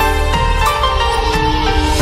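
Background music with sustained melodic notes over a steady bass.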